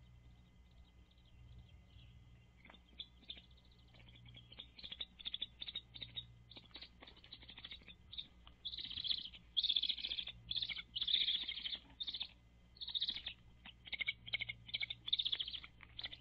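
Bald eaglet calling: runs of rapid, high-pitched chirping notes that grow louder about eight seconds in and come in bursts. A faint steady low hum sits underneath.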